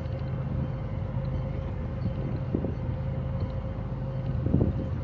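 Boat motor running steadily, a low hum with a constant whine over it, with wind on the microphone. Two short bumps come about two and a half and four and a half seconds in, the second the louder.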